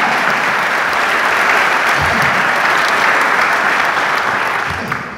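Audience applauding in a large hall, with one person clapping close to the microphone; the applause dies away near the end.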